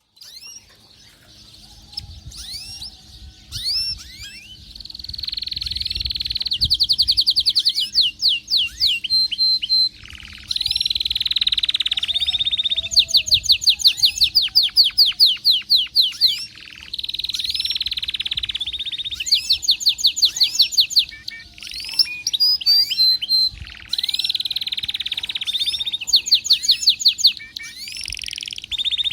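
Domestic canary singing hard in breeding condition. Scattered chirps build into long phrases: rapid rolls held on one pitch alternate with fast runs of repeated sweeping notes, with short pauses between phrases.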